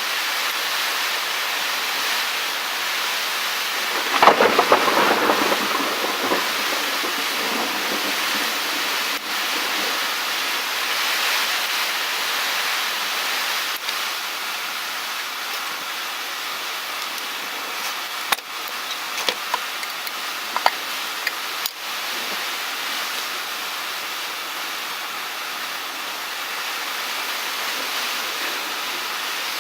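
Heavy rain falling steadily, with a crackling peal of thunder about four seconds in and a few sharp cracks later on.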